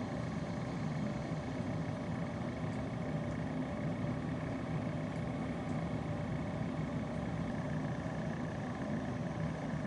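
Steady mechanical hum with a few constant tones over a low noise bed, unchanging throughout.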